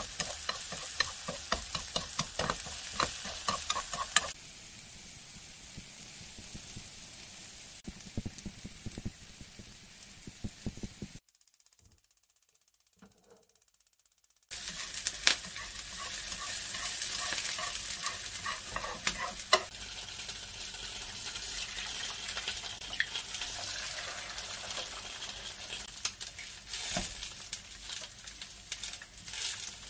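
Chopped green onions sizzling in oil in a frying pan, stirred with wooden chopsticks that click against the pan, for the first few seconds. The sound drops to near silence for about three seconds midway, then steady sizzling resumes as eggs fry with the green onions, with a few sharp clicks.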